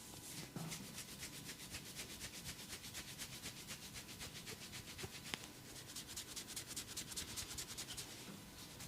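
Massaging hands rubbing briskly over skin in a quick, even rhythm of about six strokes a second, with one sharp click about five seconds in.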